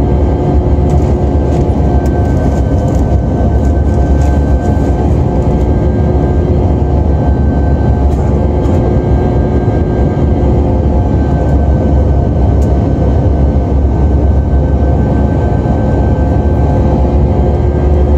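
Jet airliner cabin noise during the climb after takeoff: the turbofan engines and airflow make a steady, loud deep rumble, with a few steady engine tones over it.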